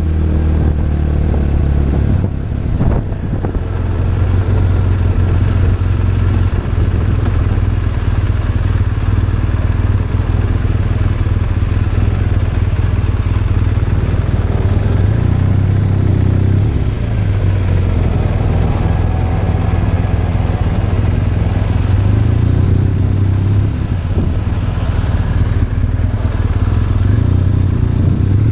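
BMW R1200RT motorcycle's boxer-twin engine running steadily as the bike is ridden. The engine note rises and falls a little with the throttle in the second half.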